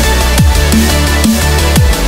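Electronic music with a fast, steady beat: deep kick drums that drop in pitch, over sustained synth notes.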